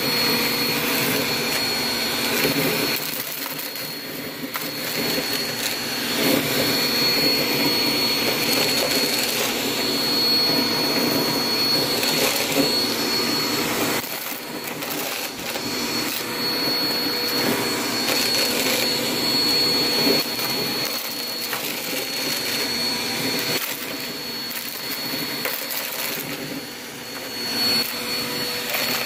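Bagless upright vacuum cleaner running on a rug and sucking up scattered confetti, a steady high whine over the motor noise with a fine crackle of debris going up the nozzle. Its loudness swells and dips several times as it is worked over the mess.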